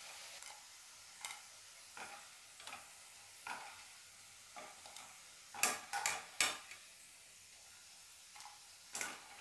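Bitter gourd slices frying in hot oil with a faint steady sizzle. Light scrapes and taps of a wire mesh skimmer against the pan and plate come every second or so, with a cluster of louder clinks a little past halfway and one more near the end, as the fried pieces are lifted out.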